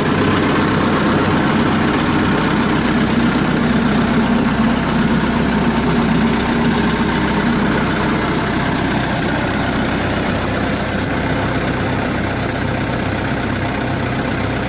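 1995 Caterpillar 436B backhoe loader's diesel engine running steadily.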